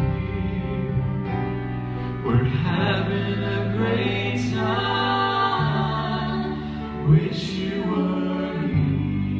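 Live Southern gospel singing into a microphone over instrumental accompaniment, with long held sung notes.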